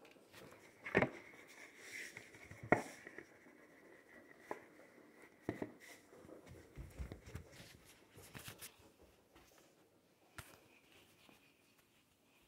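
A cardboard Pop-Tarts box knocking and rustling as a dog roots inside it and moves about with the box over its head. It comes as scattered short knocks, the loudest about a second in and near three seconds in, fewer toward the end.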